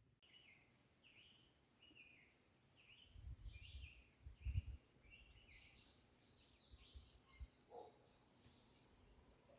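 Faint bird chirping in a steady string of short notes, with a few low, dull thumps a little before the middle.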